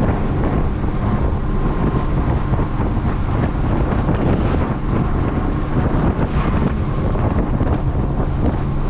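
Cab of a Hino cab-over diesel box truck cruising at about 55 mph: a steady drone of engine and road noise, with wind buffeting the microphone through the open window.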